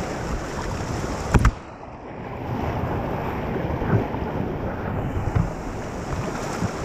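River water rushing and splashing around inner tubes, with wind buffeting the microphone. A sharp knock comes about one and a half seconds in, and the sound goes briefly duller and quieter after it before the rushing returns.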